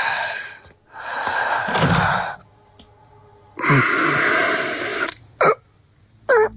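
A man groaning and breathing hard in pain: three long, rasping exhalations, each starting with a falling groan, then two short gasps near the end.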